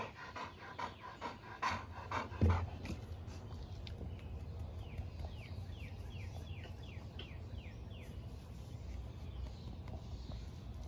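Dog panting in quick short breaths, with a thump about two and a half seconds in and a run of short, high, falling chirps in the middle.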